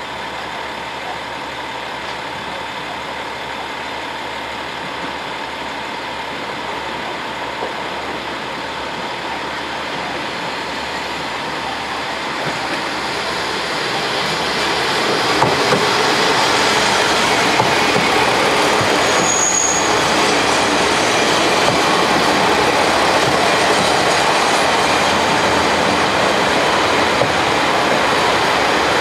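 Four-car JR KiHa 40-series diesel railcar train (KiHa 40 and KiHa 47 cars) pulling into a station: diesel engines running and wheels rolling on the rails. It grows louder about halfway through as the cars reach and pass close by, with a brief high squeal about two-thirds of the way in.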